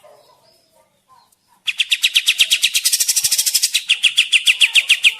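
Kapas tembak songbird singing: after a short pause, a fast, even run of sharp repeated chirps, about eight a second, starts nearly two seconds in and carries on.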